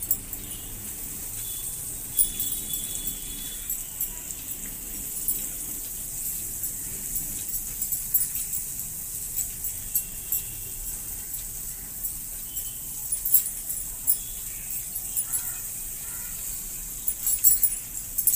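Butter sizzling in a hot non-stick frying pan under bread slices, a steady high hiss with fine crackling. A few light clinks of bangles are heard as grated cheese is sprinkled on.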